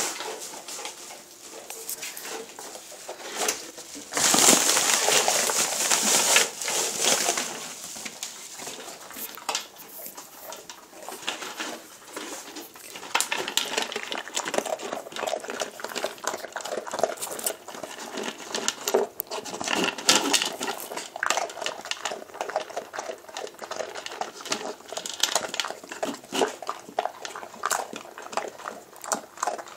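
Dogs nosing at plastic packaging, with a loud rustle from about four to seven seconds in, then a dog feeding from a pet bowl: a long run of quick clicks, crunches and rattles as its chain collar and muzzle knock against the bowl.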